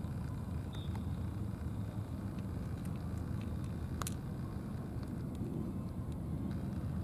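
Steady low outdoor rumble, with one faint sharp click about four seconds in.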